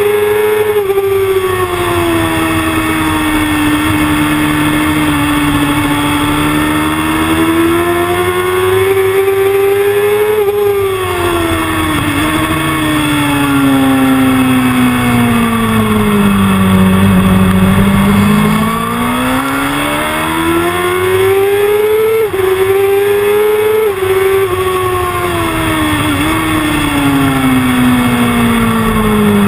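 Sport motorcycle engine at high revs, pulling hard and then easing off, its pitch rising and falling several times as the bike accelerates and slows through corners, with short breaks in the note that fit gear changes.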